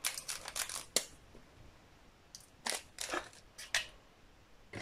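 Small plastic bags of diamond-painting drills crinkling and rustling in short bursts, a cluster in the first second and a few more about halfway through.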